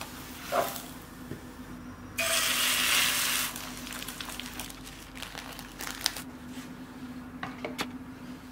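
Cooking sounds at a frying pan: a spatula tapping and scraping, then about two seconds in a loud burst of sizzling that starts and stops abruptly after a little over a second, followed by light clicks and taps, over a low steady hum.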